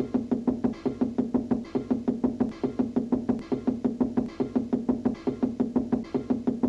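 Cartoon music with a fast, even run of knuckle knocks on a wall, several knocks a second, kept in time with the music.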